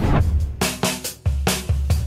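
Background music with a drum beat that comes in at the start: heavy low thumps and sharp strokes in a quick rhythm.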